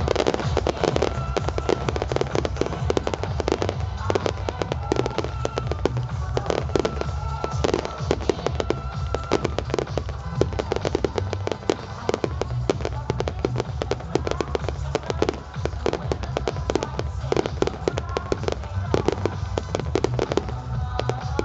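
Fireworks display: a dense, continuous run of rapid bangs and crackles from launching comets and bursting shells, with music playing underneath.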